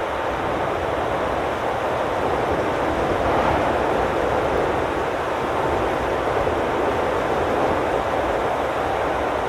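Steady hiss of television static: even noise with no tones or voices, muffled with no high end.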